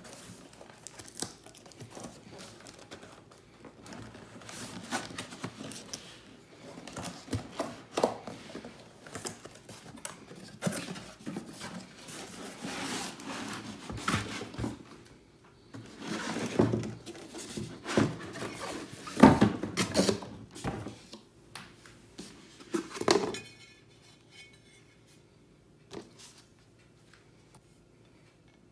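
Cardboard box and inserts rustling and scraping as they are pulled open, with knocks and clunks from a heavy 3.7 L enamelled cast iron Dutch oven and its lid being slid out and set down. The loudest knocks come about two-thirds through, and the handling dies down to a few light clicks near the end.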